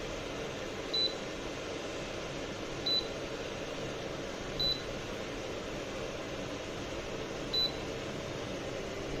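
Ceramic fan heater running with a steady fan hum, broken by four short high beeps from its controls: about a second in, near three seconds, near five and near eight.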